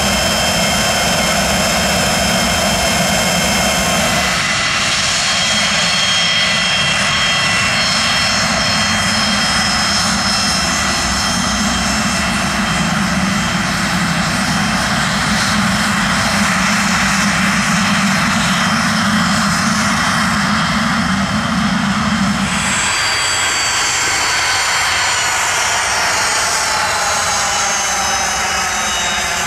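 Pilatus PC-24's twin Williams FJ44-4A turbofans running on the ground: a steady jet whine with several high tones over a broad rush of engine noise. The sound changes abruptly about four seconds in and again at about 23 seconds, and near the end the whine's pitch bends as the jet moves past.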